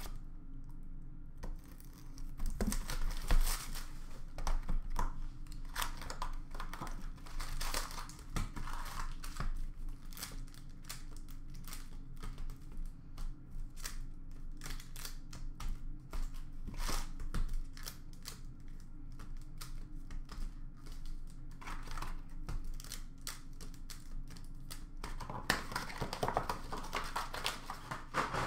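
Foil-wrapped hockey card packs crinkling and rustling as they are lifted out of their box and handled, with many small taps and clicks. The crinkling grows louder near the end.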